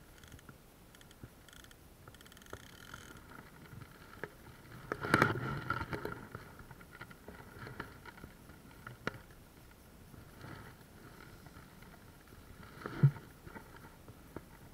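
Irregular water splashing and sloshing with scattered knocks, loudest in a cluster about five seconds in, and a sharp low thump near the end.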